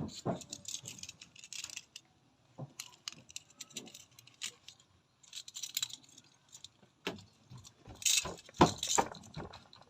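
Small metal objects jingling and clicking as they are handled, in irregular bursts with a brief pause midway and the loudest clatter near the end.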